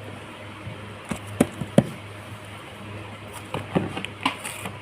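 Small knocks and taps from handling a gift box and its packaging, about six in all, over a steady low hum.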